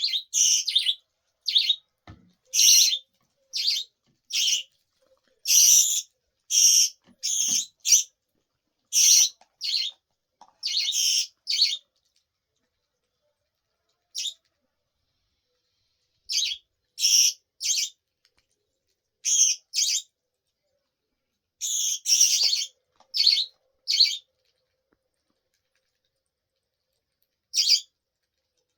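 Budgerigar chirping: many short, high chirps in irregular runs, with a few pauses of several seconds.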